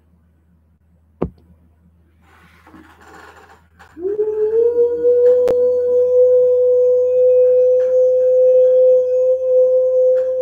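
Near-quiet opening with a sharp click or two, then about four seconds in a single sustained musical tone that slides up briefly and holds steady.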